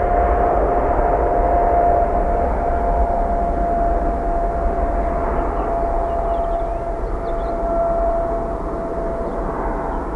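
Boeing 777 jet engines during the landing rollout: a steady rushing roar with a held whine, easing off slightly near the end.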